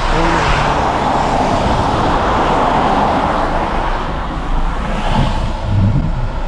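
Steady road noise inside a vehicle's cabin while driving on a wet road in traffic: tyre hiss and spray over a low engine rumble.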